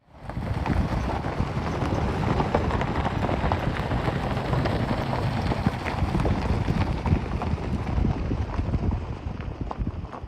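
An off-road vehicle driving over a dirt and gravel trail: a steady rumble with many quick crunches, knocks and rattles from the tyres and body, mixed with wind noise on the microphone.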